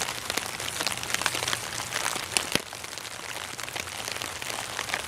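Rain falling on a Dyneema (Cuben fiber) tarp overhead: a steady patter with many sharp, pingy drop strikes scattered through it.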